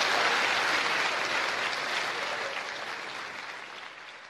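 Live audience applauding after a punchline, steadily fading away.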